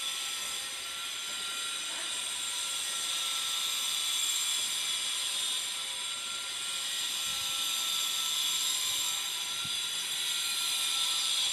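A steady high-pitched hiss with a few faint steady tones under it.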